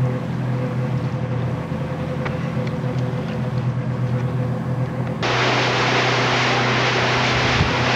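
A motor hums steadily. About five seconds in, the sound cuts abruptly to loud rushing, splashing water.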